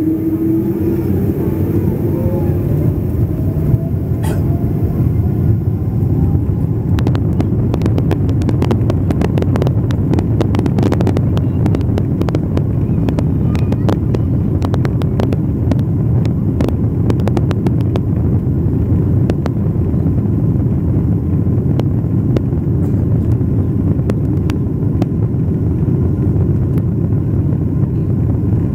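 Boeing 777-200's jet engines and airframe heard from inside the cabin as a loud, steady rumble during the takeoff roll. A faint whine rises in pitch over the first few seconds as the engines spool up. From about a quarter of the way in to past the middle, the landing gear knocks in a quick, irregular run over the runway joints.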